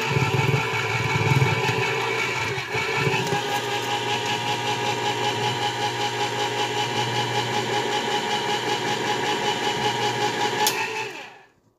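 Hamilton Beach electric can opener running as it turns a steel can and cuts around the lid: a steady motor hum with a fast, even pulse from the rotating can. It stops with a click near the end.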